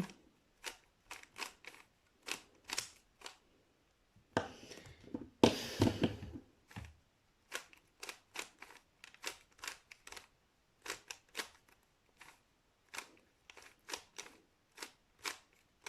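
Plastic 3x3 Rubik's cube being turned by hand: a string of sharp clicks as its layers snap into place, one or two a second, with a longer flurry of rattling turns about five seconds in.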